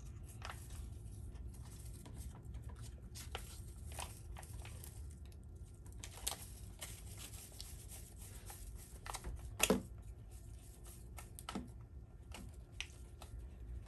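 Small packet crinkling and rustling in the hands as it is squeezed and shaken to empty out powdered candy-slime mix, in scattered short crackles with one louder crackle about ten seconds in.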